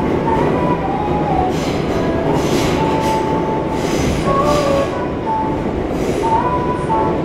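Running noise heard inside an old resistor-control 2000-series subway car: a steady loud rumble of wheels and running gear on the track, with high-pitched wheel squeal coming and going as several whining tones.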